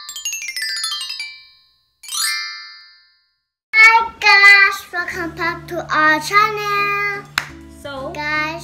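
Two falling, sparkling chime sound effects in the first three seconds. After that, a child and a woman sing out a greeting over a soft, steady background music track.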